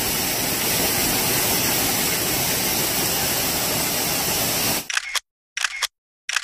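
Waterfall rushing over rock, a steady even noise. Near the end it is chopped into a few short bits with dead silence between them.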